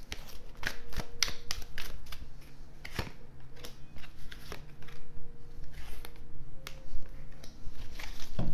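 Oracle cards being dealt off a hand-held deck onto a tabletop: an irregular run of light slaps and flicks of card stock as the piles are laid down.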